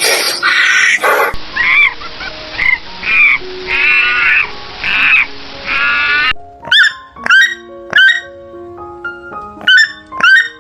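A series of short, pitched animal calls over background music, followed by a few seconds of music with short plucked notes.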